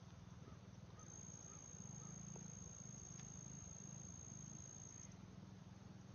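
Faint, steady, high-pitched insect trill that starts about a second in and stops near the end, over a faint low rumble.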